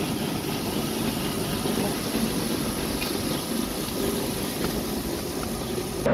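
A steady low rumble of outdoor background noise with no distinct events in it.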